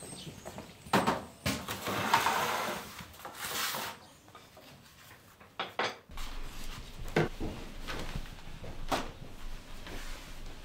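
Kitchen handling sounds: knocks and light clatter of things handled and set down on a counter, with a rough rustling stretch about two to four seconds in. A low hum comes in about halfway, and sharper single knocks follow.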